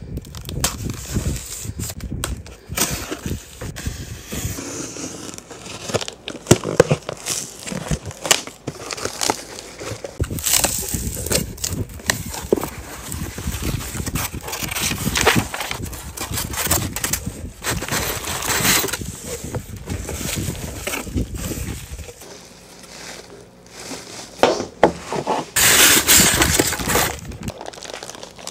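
A cardboard shipping box being cut open and unpacked: packing tape slit, flaps opened, and paper and plastic-wrapped parts handled, giving irregular rustling, crinkling, scrapes and knocks. The loudest is a harsh rustle near the end.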